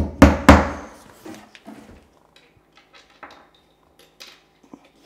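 A hammer striking three times in quick succession on an OSB wood subfloor, with a short ringing after each blow. Quiet footsteps and small knocks follow.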